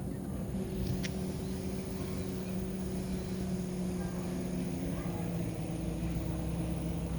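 An engine running steadily with a low, even hum, and a single short click about a second in.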